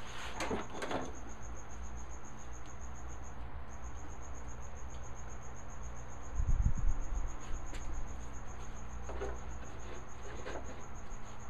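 A hand tool scraping on a walnut board for a few strokes in the first second and again late on, with a dull thump about six and a half seconds in. A steady high-pitched pulsing trill runs underneath most of the time.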